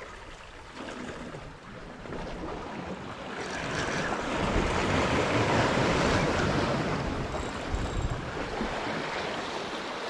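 Sea waves washing and splashing against shoreline rocks, swelling to a surge in the middle and easing off, with some wind buffeting the microphone.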